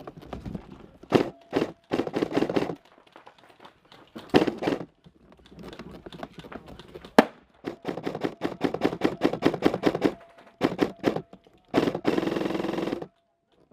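Airsoft electric gun firing repeated full-auto bursts with short pauses: a rapid, even clatter of shots over a faint motor whine. The longest unbroken burst comes near the end.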